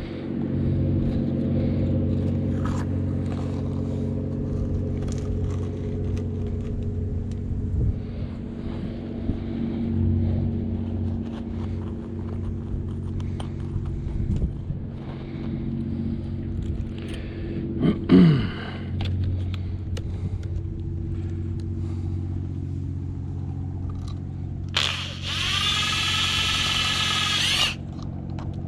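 A power drill driving screws: a loud high whine that winds up and runs for about three seconds near the end, with short bursts and clicks earlier. A steady low hum runs underneath throughout.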